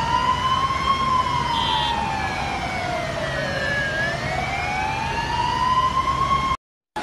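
Emergency vehicle siren wailing, its pitch slowly rising and falling, about one full sweep every five seconds, over a steady low rumble. It cuts off suddenly near the end.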